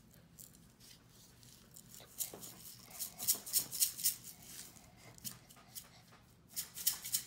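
Sprinkles rattling inside a round plastic multi-compartment sprinkle shaker as it is shaken, at about four shakes a second. The shaking starts about two seconds in, pauses briefly, and picks up again near the end.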